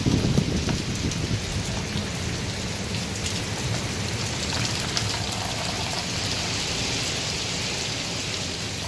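Heavy hurricane rain pouring steadily in strong wind, with a gust rumbling on the microphone at the start.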